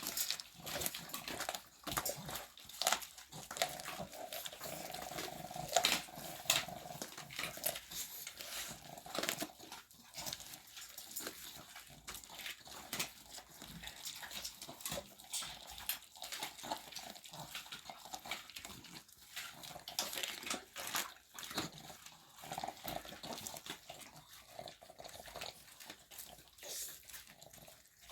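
Several dogs chewing raw meat and bone, with rapid, irregular crunches and wet smacks.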